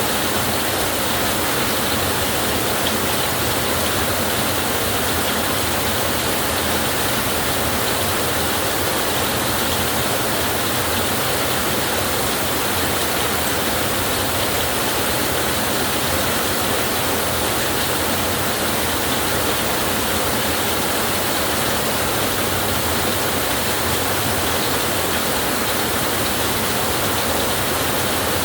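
Heavy rain pouring steadily on a tin roof, an even hiss that doesn't change.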